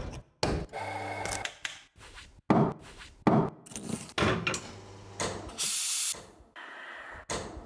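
Espresso machine being worked in quick succession: a metal portafilter clanks into the group head, with sharp clicks and knocks, stretches of steady motor hum, and a short burst of hissing about six seconds in.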